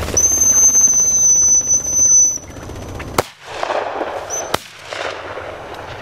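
A long, steady blast on a high-pitched dog whistle, the sit signal to a flushing dog at the flush. About three seconds in, two shotgun shots follow, about a second and a half apart.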